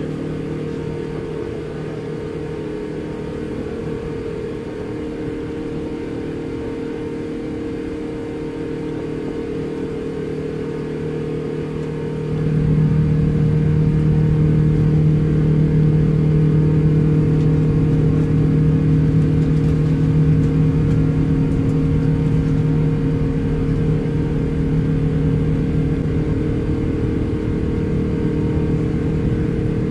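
Jet engines of an Airbus A380 climbing after takeoff: a steady low drone with several held hum tones. It gets abruptly louder about twelve seconds in.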